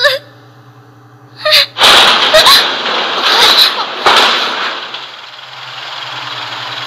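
A person's loud breathy bursts of breath and voice, several of them about a second apart with brief squeaky catches, over a low steady hum. A short sharp sound comes right at the start.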